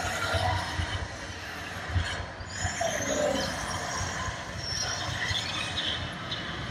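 Show sound effects over outdoor loudspeakers: low rumbling with screeching tones that slide in pitch a few seconds in.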